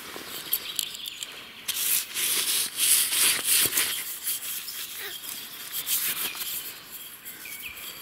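Hands scraping and rubbing soil around an old glass bottle as it is worked out of root-filled earth: a rough rustling and crumbling, loudest from about two to four seconds in.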